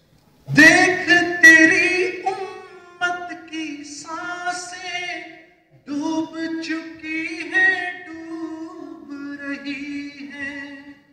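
A man singing a naat, an Urdu devotional song in praise of the Prophet, solo and unaccompanied into a microphone. It comes in two long phrases, the held vowels sliding and wavering in pitch.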